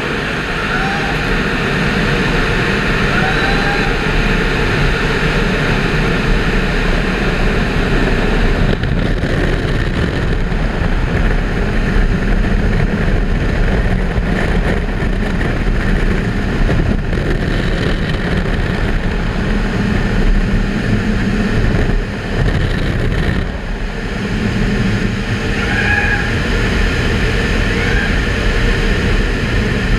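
Automatic tunnel car wash running, heard from a camera on the car's hood: a loud, steady rush of water spray and wash machinery, with the overhead dryer blowers by the end.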